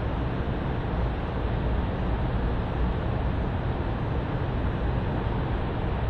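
Steady rumbling background noise with no distinct events, heaviest in the low end and cut off at the top.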